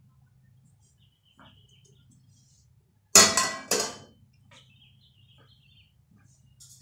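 Metal saucepan set down on the gas burner grate of a cooker: two sharp metal clanks about half a second apart, the first the louder.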